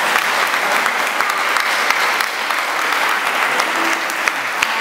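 Audience applauding: many people clapping in a dense, steady patter that keeps an even level throughout.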